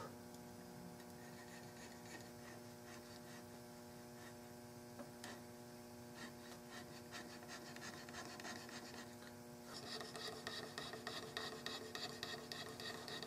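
Hand checkering tool scraping in short, rapid strokes along the checkering lines of a walnut gunstock; the strokes grow louder and quicker about ten seconds in. A faint steady hum runs beneath.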